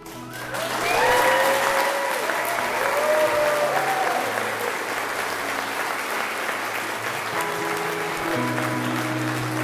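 Wedding guests applauding and cheering, with a few loud whoops in the first few seconds. Music comes back in under the clapping near the end.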